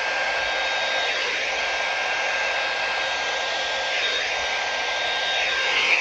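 Flat-faced hairdryer running steadily on high, a rush of air with a steady whine, blowing across wet acrylic paint.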